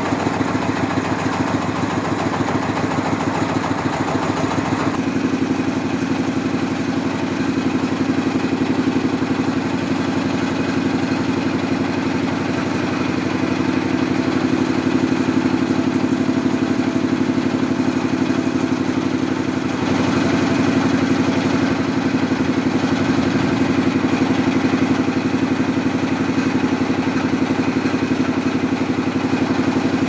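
An engine running steadily at idle, getting a little louder about two-thirds of the way through.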